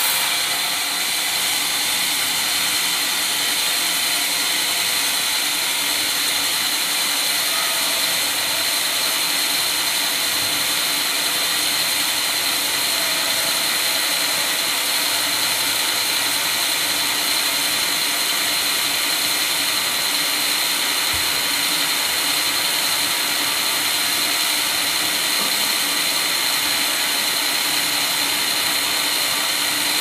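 Homemade band sawmill running steadily: a continuous mechanical whir from its motor and band blade, with a constant high tone over it.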